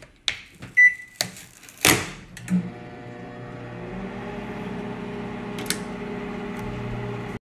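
Microwave oven being started: a few keypad clicks and one short beep, then a louder knock about two seconds in. After that the oven runs with a steady hum that slowly grows a little louder.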